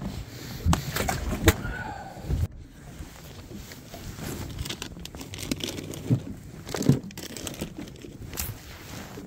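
Rustling and crinkling of clothing and gloves while fishing rods are handled in a boat, with a few light knocks scattered through, the sharpest about one and a half seconds in and again near seven seconds.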